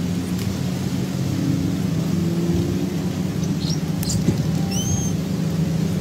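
Steady low engine rumble in the background, with two short high-pitched bird chirps about three and a half and five seconds in.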